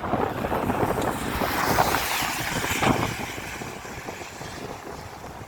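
Rushing water of the Karnali River in its rainy-season flow, with wind buffeting the microphone; it grows gradually quieter over the last couple of seconds.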